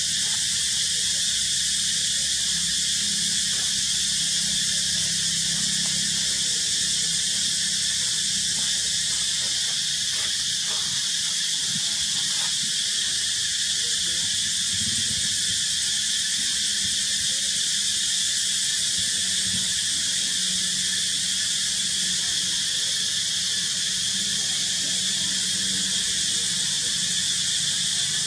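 Steady, dense chorus of insects: a continuous high hiss that holds level without a break.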